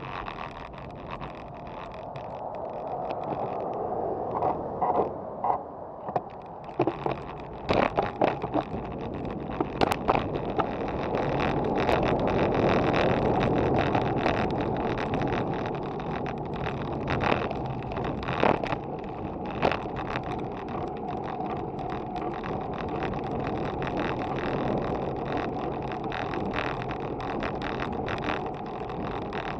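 Road bike being ridden, heard through a bike-mounted action camera: rushing wind and tyre-on-road noise that swells as the bike picks up speed over the first dozen seconds and then holds steady, with sharp knocks and rattles from bumps in the path in the first ten seconds and again about two-thirds of the way through.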